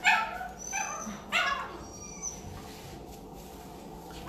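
Puppies in shelter kennels yipping: three sharp, high barks that each drop in pitch in the first second and a half, then quieter.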